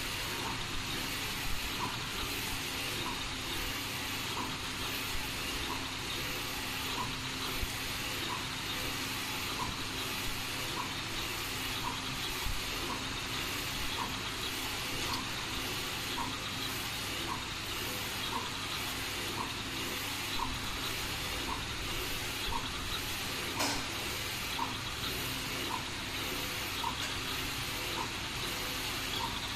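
Direct-to-garment T-shirt printer printing: the print-head carriage shuttles over the platen with a steady hissing whir and a short regular tick about once a second.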